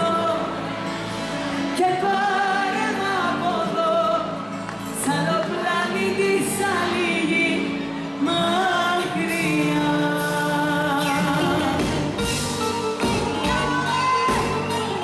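A woman sings a Greek pop song live into a microphone, backed by a live band with drums and guitar.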